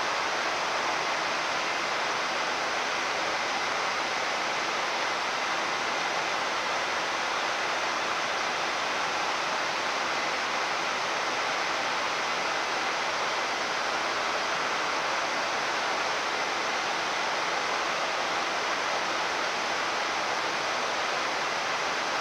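Steady rush of air noise on a Boeing 787-9 flight deck in the climb, a smooth hiss with a faint high steady tone running through it.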